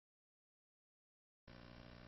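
Near silence, then a faint steady hum begins about three-quarters of the way through.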